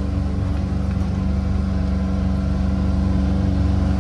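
Corvus DX4 Pro EPS utility vehicle's engine running at a steady speed while driving, heard from inside the cab.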